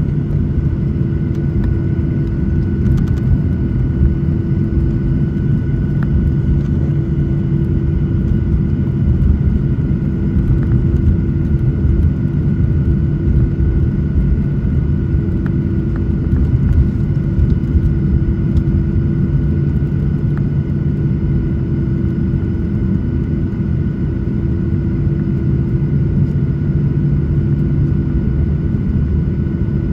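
Jet airliner engines heard from inside the cabin: a steady low rumble with a constant hum, unchanging throughout, as the plane sits or taxis on the ground before takeoff.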